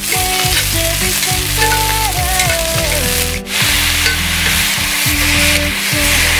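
Pork steaks frying in a cast-iron skillet, sizzling steadily, with a brief drop about halfway through.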